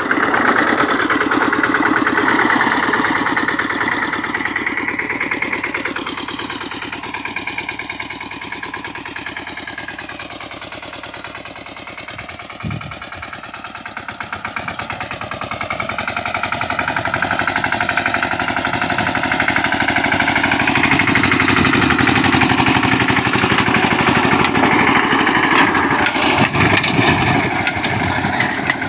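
Mahindra 215 mini tractor's single-cylinder diesel engine running under load while driving a rotavator through dry soil, with a fast, even engine pulse. It fades as the tractor moves away and grows louder again as it comes back close, with one short knock about halfway through.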